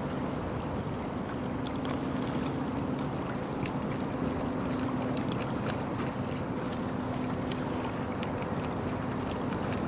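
Engine of a small general cargo ship running steadily as she passes close by: a steady low hum over wind on the microphone, with scattered faint ticks.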